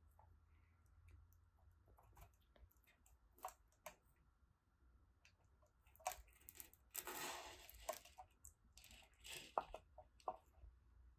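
Near silence with faint handling noises: scattered soft clicks and, about seven seconds in, a brief rustle, from fingers and a snake's head working the plastic film stretched over a venom-collection beaker.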